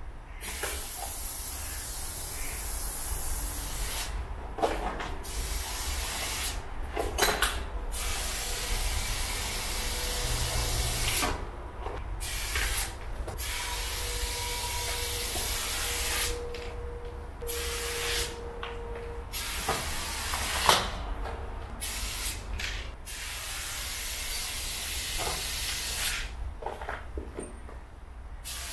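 Aerosol spray paint can hissing in long bursts of several seconds, with short breaks between them, as paint is sprayed onto a concrete wall. A few sharp clicks fall between the bursts.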